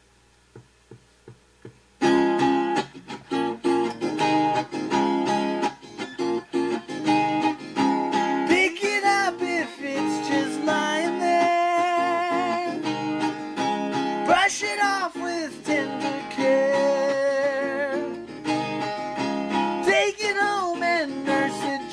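Four faint ticks, then about two seconds in a strummed acoustic guitar starts. A voice begins singing over it several seconds later, with a wavering pitch on the held notes.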